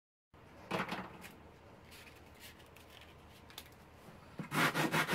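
Hands handling a large 3D-printed plastic lampshade and its base: a scrape about a second in, then light knocks and rubs. From about four and a half seconds comes a fast run of rubbing strokes, about five a second.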